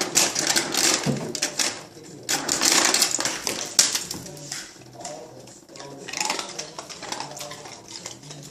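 Rattling clatter from a refrigerator's door ice dispenser as it is worked, in two loud spells in the first four seconds, then quieter clicking.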